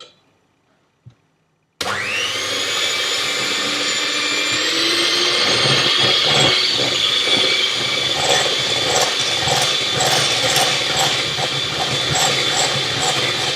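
Electric blender switching on suddenly about two seconds in, its motor quickly rising in pitch and then running steadily at full speed. In the second half there is an even knocking of hard pieces being crushed by the blades.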